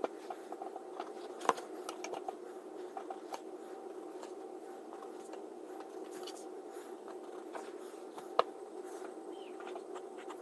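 Pencil marking short dashes on paper along a steel ruler: light scratches and small taps over a steady low hiss, with sharper clicks about a second and a half in and again about eight seconds in.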